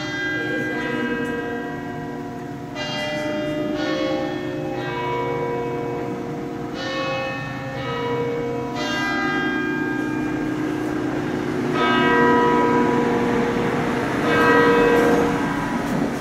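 Church bells ringing: several bells struck one after another, each strike ringing on and overlapping the next.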